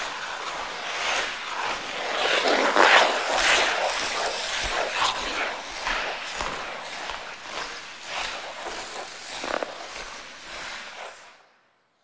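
Ice skate blades scraping and gliding across ice in repeated strokes, a rough hiss that swells and fades with each stroke. It fades out near the end.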